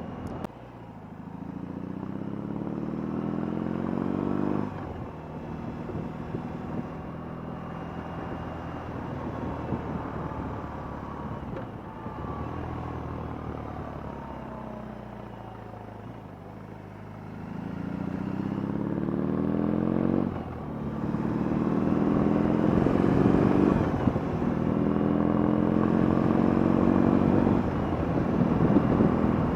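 BMW R18's boxer-twin engine accelerating and upshifting. The note climbs and drops at a gear change about four and a half seconds in, then falls away as the bike slows. Near the end it climbs again through three quick upshifts, over steady wind and road noise.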